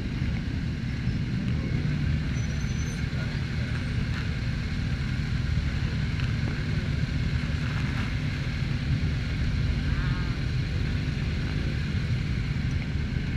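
Motorcycle engines idling together in a low, steady rumble, the nearest being the bike the camera rides on, with other motorcycles running all around.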